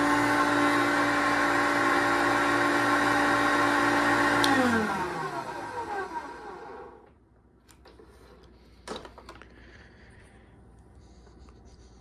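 A 1990 Hoover Concept One upright vacuum cleaner runs steadily, then is switched off with a click about four and a half seconds in. Its motor winds down, the whine falling in pitch over about two seconds until it stops. A few faint clicks and a short knock follow.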